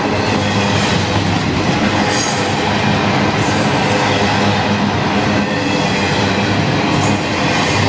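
Double-stack intermodal freight cars rolling past close by: a steady loud rumble of steel wheels on the rails, with brief high screeches every second or two.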